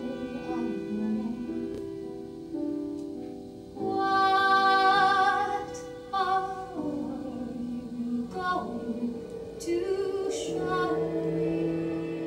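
Live stage music: a woman singing long held notes without clear words over a sustained violin accompaniment. The loudest note swells up a few seconds in.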